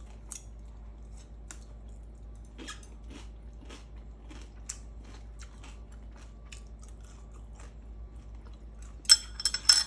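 A person chewing food close to the microphone, with soft wet mouth clicks, then a burst of loud crunchy bites near the end.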